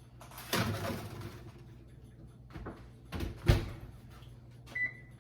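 Kitchen oven being loaded and shut: a scraping slide about half a second in, a loud thud of the oven door closing at about three and a half seconds, then a short electronic beep from the oven's control panel near the end.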